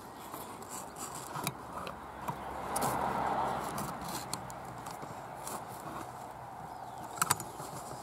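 Twigs brushing, scraping and clicking as a camera is pushed in among a stick nest, with a louder scraping swell about three seconds in and two sharp clicks near the end.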